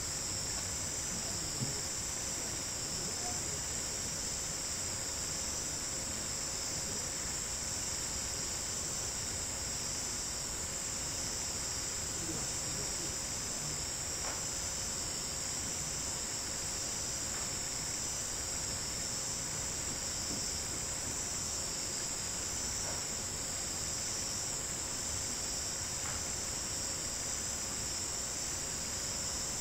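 A chorus of night-singing insects trilling steadily and unbroken, high-pitched.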